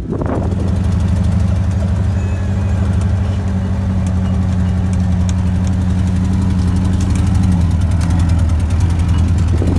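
Dune buggy's air-cooled engine running at steady revs while driving over sand, heard from on board; the pitch drops slightly about seven and a half seconds in.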